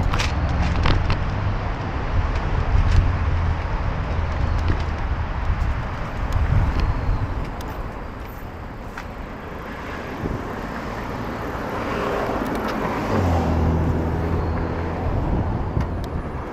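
City road traffic: a steady noise of passing cars, with the low hum of a nearby vehicle's engine at the start and again about thirteen seconds in.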